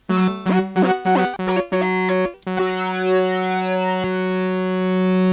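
Dreadbox Abyss synthesizer playing a basic sound through an Earthquaker Devices Pyramids flanger pedal. A run of short notes with a swooping flange comes first, then about two and a half seconds in one held note sounds, with the flanger's sweep slowly moving up through it.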